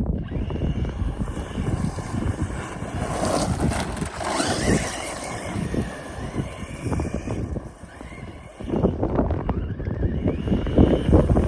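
Strong wind buffeting the microphone over a DHK Maximus 1/8-scale brushless RC truck running on a loose dirt road, with a faint motor whine; the wind eases briefly about eight seconds in.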